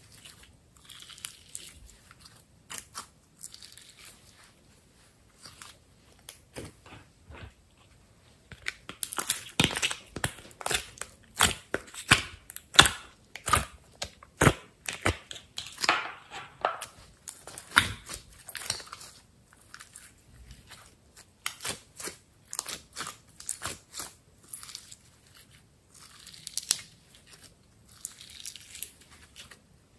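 Sticky slime being stretched, squeezed and pressed by hand, giving wet clicking and popping crackles. The pops come thick and loud through the middle, as the slime is pushed against a clear plastic grid, and sparser before and after.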